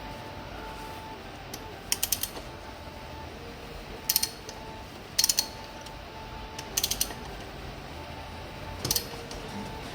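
Ratchet wrench with a T35 Torx bit clicking in five short bursts of quick ticks, about one to two seconds apart, as the front fork's axle clamping bolts are undone.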